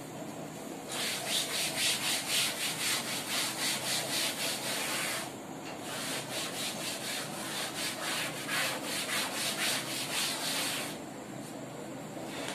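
Eraser rubbed briskly back and forth across a chalkboard, wiping off chalk writing, at about four to five strokes a second. There are two spells of rubbing with a short pause near the middle.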